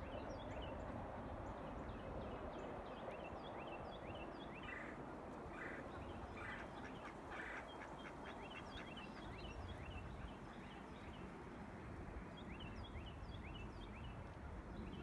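Ducks quacking a few times about five to seven seconds in, among many quick, high, falling chirps from small birds, over a low, steady outdoor rumble.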